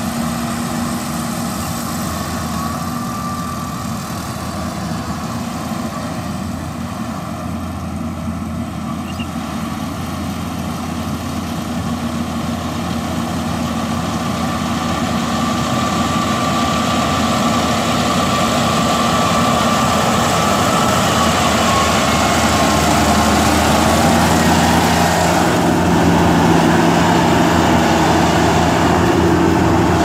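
Yanmar AG600A rice combine harvester running as it cuts rice, its diesel engine and threshing machinery giving a steady drone. It grows louder over the second half as the machine comes up close.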